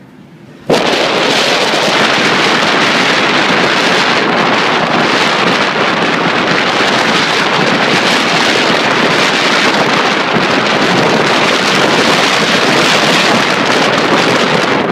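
Loud, rushing wind noise buffeting the microphone. It starts abruptly about a second in.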